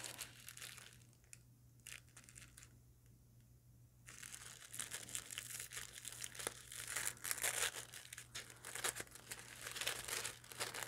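Black tissue paper rustling and crinkling as a wrapped beeswax candle is unwrapped by hand and its sticker seal peeled off. It stays faint for the first few seconds, then turns into steady crinkling about four seconds in.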